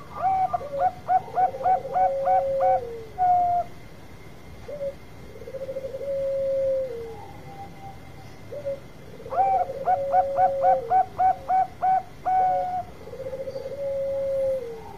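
Zebra dove (Bangkok perkutut) singing its long cooing song: twice, once at the start and again about nine seconds in, a quick run of about eight short notes ends in a longer note. Lower, drawn-out coos that fall in pitch at the end sound between and under the phrases.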